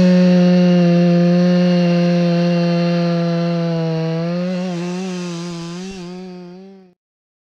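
Freshly ported Husqvarna 351 50cc two-stroke chainsaw running at high revs just out of the cut, its note held steady and wavering slightly about two-thirds in, then fading out near the end. The saw is not yet broken in and its carburettor not yet turned up.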